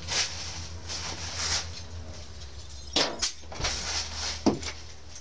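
1994 Ford F-150 pickup idling after a cold start in freezing weather, heard at the exhaust tip as a steady low hum. Short breathy puffs come over it, and there are a couple of sharp knocks about three and four and a half seconds in.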